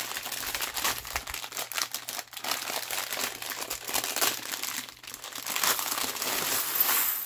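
Steady crinkling and rustling of a bag of small craft embellishments being handled and rummaged through; it stops suddenly near the end.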